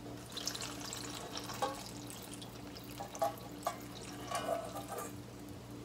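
Dashi soup poured from a stainless steel bowl onto deep-fried tofu pouches in a pot: a quiet trickle and drips, with a few light clicks of a spoon against the bowl, over a faint steady hum.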